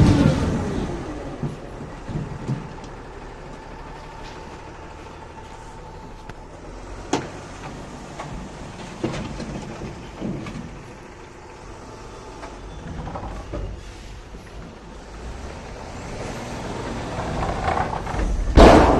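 Heavy vehicle engine noise, steady through the middle with a few sharp knocks, swelling to its loudest near the end as the vehicle draws close.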